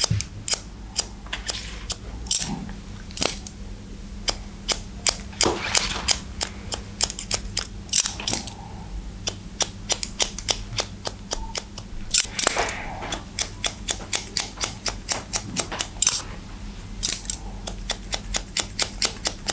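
Hairdressing scissors snipping into wet hair: many crisp cuts in irregular runs, at times several snips a second.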